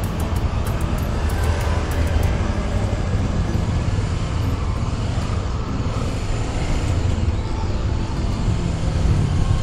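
Motorcycle engine running steadily while riding, with a constant rush of wind and road noise.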